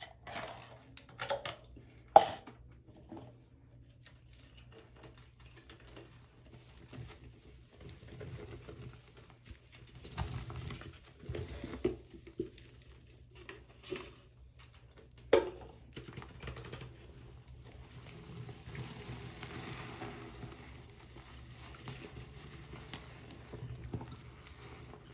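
A sponge squeezed and kneaded by hand in foamy detergent water, partly caked with Comet cleanser powder: wet squelching and fizzing of suds. Two sharp knocks stand out, one about two seconds in and one about fifteen seconds in.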